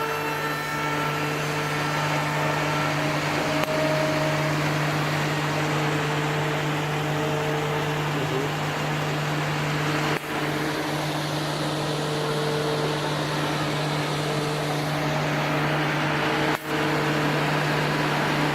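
CNC200 tenon-cutting machine running with a steady motor drone, its loudness dipping briefly twice.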